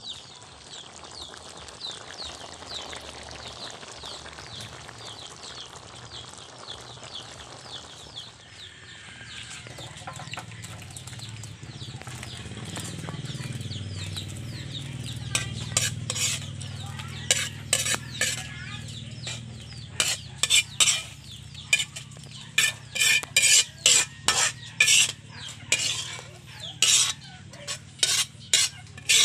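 Thick tomato stew simmering and bubbling in a wok, then a metal spoon scraping and clanking repeatedly against the wok and a metal tray as the stew is ladled out; the scrapes come thick and loud over the last dozen seconds.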